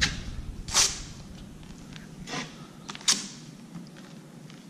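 Drywall taping knife spreading joint compound on a wall: several short scraping swipes, with a sharp tap about three seconds in.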